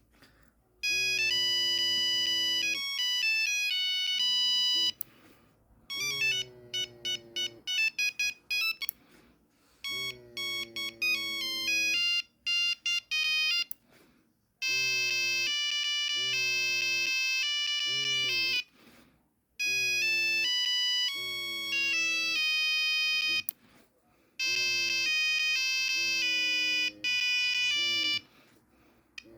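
Nokia 3310 monophonic ringtone playing a beeping melody one note at a time, in several phrases with short breaks between them.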